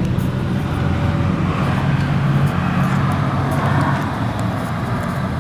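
Steady low rumble of a motor vehicle engine running nearby, with road traffic noise.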